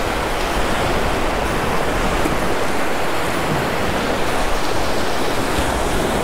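Surf washing over the shallows of a beach: a steady, dense rush of breaking-wave water noise.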